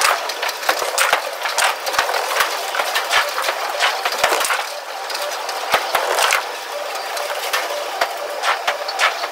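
Bowling alley clatter: a dense, irregular run of sharp clicks and knocks from pins and pinsetter machinery, several a second throughout.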